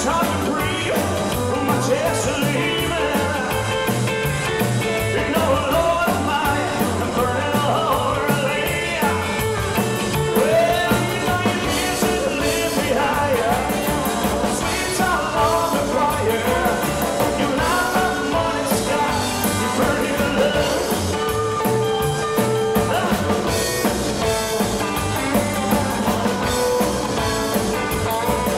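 Live rock 'n' roll band playing: a male singer over upright double bass, electric guitar and drum kit, with a steady driving beat.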